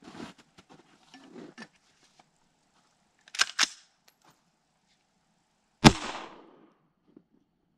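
An AR-15 with a muzzle-mounted can cannon fires once, launching a can: one sharp, loud shot near six seconds in, trailing off over about a second. Before it come light handling noises and two sharp clacks about three and a half seconds in.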